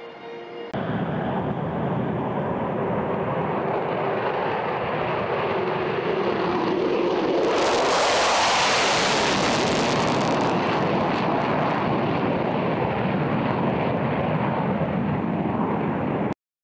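F-22 Raptor's twin F119 turbofan jet engines roaring on a flypast. The roar starts suddenly under a second in and carries a tone that drops in pitch. It swells to its loudest, with a harsh hiss, about eight seconds in, then cuts off abruptly near the end.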